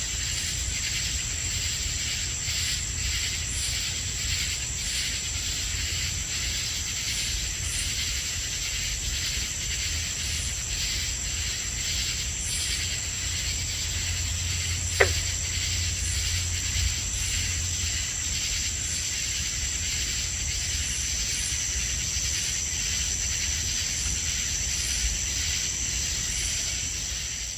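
Night insect chorus: a steady high-pitched trill of crickets, with katydid calls pulsing rhythmically over it and a low rumble underneath. A single short, falling call sounds once about halfway through. The chorus fades out at the very end.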